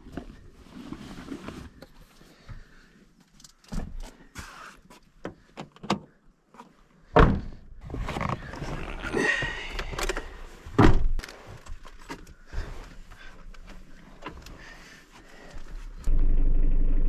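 A string of separate thunks and knocks, car doors and gear being handled, then a loud, steady car engine sound that starts abruptly near the end.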